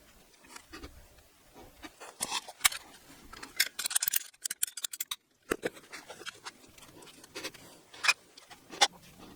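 Irregular sharp clicks and knocks of PPR plastic water pipe and fittings being handled and worked, with a quick run of clicks a few seconds in and single sharp snaps near the end.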